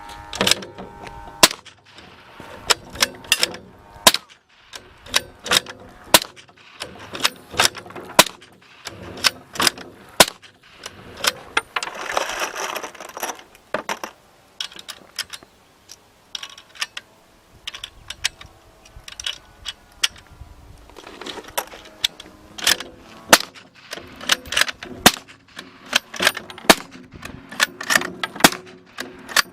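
Suppressed gunfire: dozens of sharp, short shots in irregular strings and groups, some rapid, with a brief noisier stretch about halfway through.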